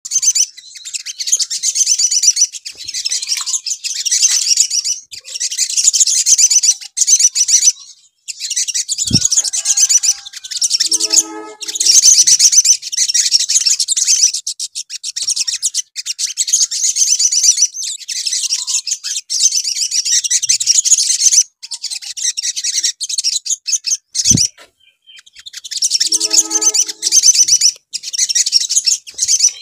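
Olive-backed sunbird song: rapid, high twittering phrases of a couple of seconds each with short breaks, used as a lure song to set other sunbirds singing. Twice a short low thump is heard, each followed a couple of seconds later by a brief lower, stepped sound.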